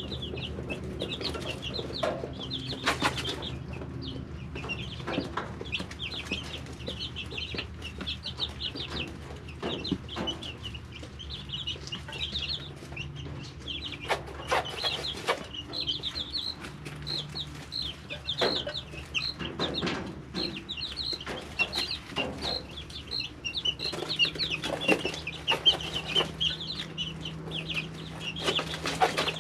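A brood of three-week-old chicks peeping, many short high chirps overlapping without a break. Now and then a sharp knock or scratch cuts through.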